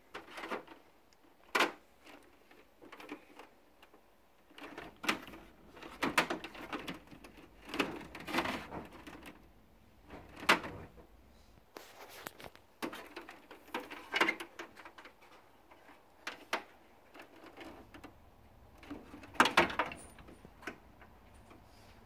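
Irregular short clicks and knocks of plastic parts and wiring being handled inside a floor-standing air conditioner with its front panel off, a dozen or so scattered through, the loudest a few bunched together near the end.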